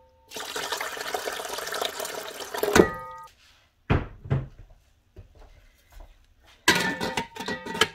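Water poured for about three seconds into the metal inner pot of a pressure cooker, stopping suddenly. A few light knocks follow, then a ringing metal clatter near the end.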